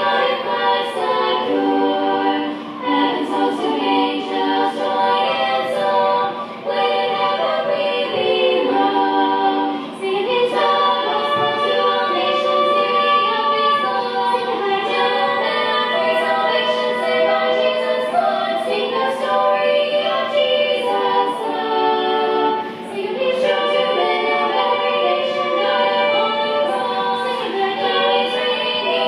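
Three-part a cappella gospel singing: a female lead, a female alto and a male tenor in close harmony, with no instruments, phrase after phrase with short breaths between.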